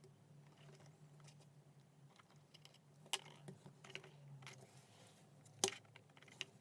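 Faint light clicks and taps from small parts being handled at a workbench, with two sharper clicks about three and five and a half seconds in, over a low steady hum.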